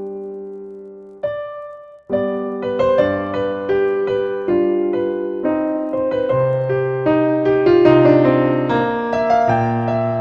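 Solo piano music: a held chord dies away, a single note sounds about a second in, then a flowing melody with low bass notes begins about two seconds in.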